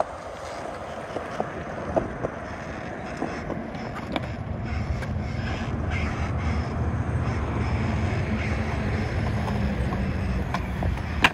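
Skateboard wheels rolling on smooth concrete: a steady low rumble that grows louder from about four seconds in, with a few scattered clicks and a sharp clack right at the end as the board strikes.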